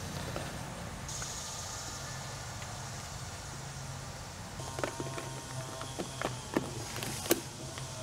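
Small clicks and taps from the plastic doorbell camera and its metal mounting bracket as they are handled and fitted together, about seven of them from about five seconds in, the sharpest near the end. Under them runs a steady low outdoor background hum with a faint high hiss.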